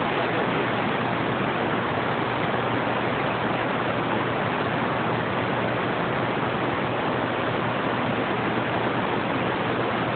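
Steady hiss of CB radio static from an open receiver, with no station coming through.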